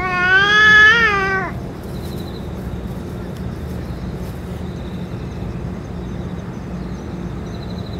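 A cat's long, wavering yowl lasting about a second and a half, rising a little near its end before cutting off, then a steady low background hum.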